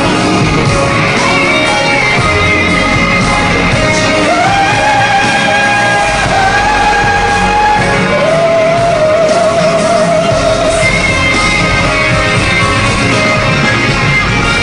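Male pop singer singing live into a handheld microphone over loud band accompaniment, holding several long notes in a row, the last one wavering with vibrato.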